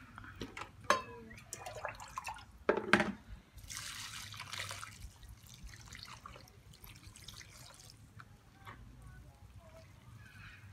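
Water poured from an enamel mug into a plastic basin of fermented cassava mash (akpu), with wet squelching as a hand mixes it to smooth out lumps. The pour hisses loudest about four seconds in. Two sharp knocks come earlier as the mug is handled.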